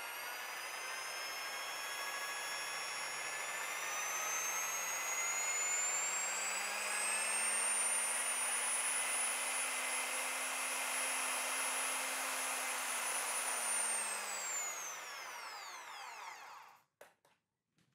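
Bosch corded electric drill running with its gears freshly greased: the motor whine climbs in pitch over several seconds as it speeds up, holds steady, then winds down about fourteen seconds in and stops, with a few faint clicks after.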